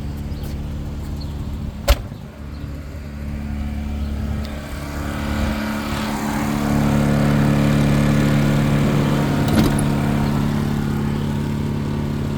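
An engine running steadily, its hum swelling louder about six seconds in, with a sharp click about two seconds in and a lighter one near the end.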